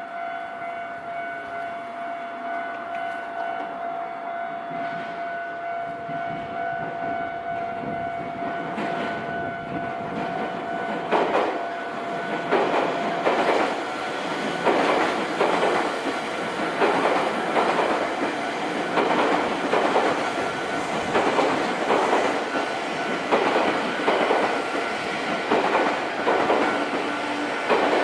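Level-crossing warning bell ringing with steady tones, then a JR Kisei Main Line train runs over the crossing: from about halfway its wheels clack over the rail joints in regular pairs, about one pair a second, over the rumble of the train.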